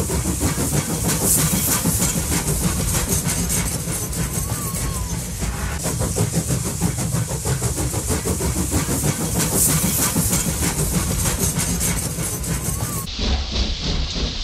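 Steam-train running sound: a steady hiss with a rapid, even, rhythmic clatter, like a locomotive chuffing along the rails.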